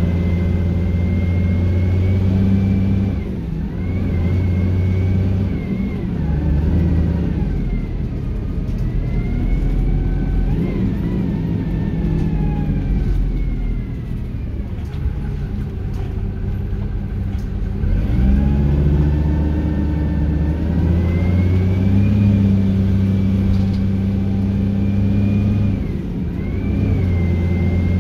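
ADL Dart SLF bus engine heard from inside the saloon, pulling hard under acceleration, its note climbing and then dropping back at each gear change, with a higher whine rising and falling along with it. It eases off and runs lower for a few seconds past the middle, then picks up sharply again about two thirds of the way through.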